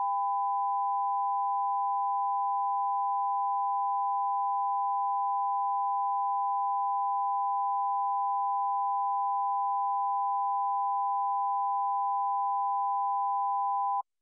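Broadcast line-up test tone sounding with the colour bars before the channel begins programming: one steady, pure tone that cuts off suddenly near the end.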